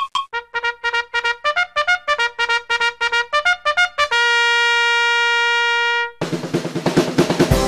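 Intro music: a quick run of short, repeated notes, about five a second, ends in one long held note. About six seconds in a different, fuller track with a beat cuts in.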